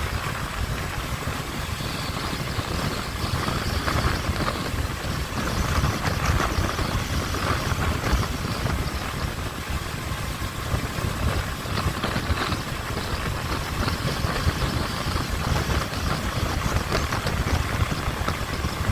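Honda CB500F motorcycle's parallel-twin engine and exhaust running at a fairly steady level, with small swells in loudness.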